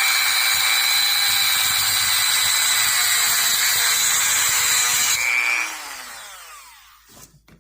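Rotary tool with a thin cut-off wheel running at high speed, cutting through a diecast model car's thin metal axle rod, a loud steady high whine. About five seconds in it is switched off and the whine falls in pitch and fades as the wheel spins down.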